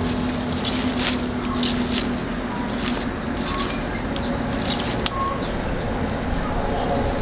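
Taro stems rustling and knocking as they are handled and packed into a woven basket, with scattered sharp clicks, over a steady high-pitched whine.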